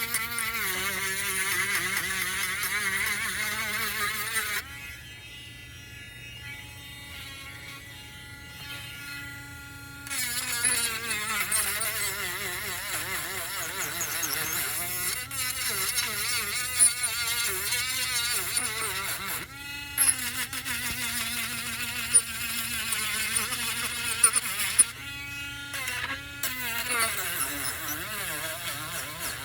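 Small electric power sander running, its motor buzz wavering in pitch as it is worked; it drops to a quieter, steadier hum for several seconds about five seconds in, with a few brief sharp clicks later.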